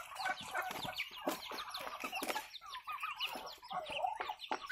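Chickens clucking: a steady flurry of short, quick calls from several birds, overlapping one another.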